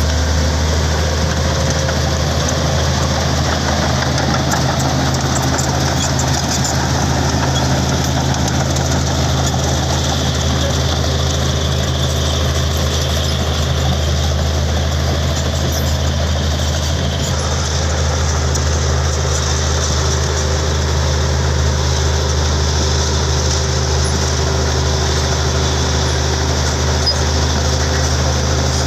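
Komatsu D65P bulldozer's diesel engine running at a steady, deep pitch.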